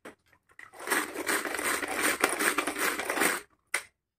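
Manual pull-cord vegetable chopper being worked by hand, its blades churning aloe vera gel: a ragged plastic whirring and rattling for about two and a half seconds, with a brief plastic clatter near the end.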